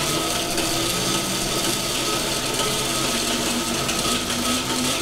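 QS 138 90H electric motor spinning under power, a steady whine with a lower hum that drifts slightly in pitch.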